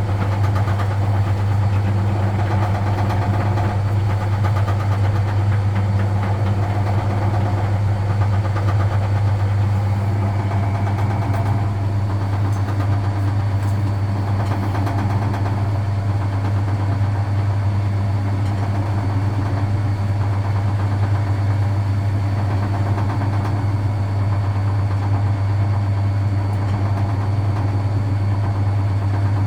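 Vintage Frigidaire Super Deluxe Automatic 50 front-loading washing machine running mid-cycle, its induction motor giving a loud, steady low hum over the churning of the drum.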